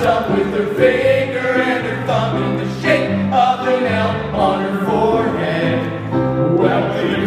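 Several men singing together through stage microphones in a live performance.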